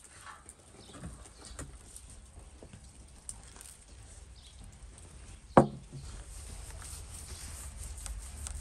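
Hands sprinkling coarse salt over a whole raw fish on a steel tray and rubbing it into the scales: soft pattering, rubbing and small clicks, with one sharp knock about five and a half seconds in.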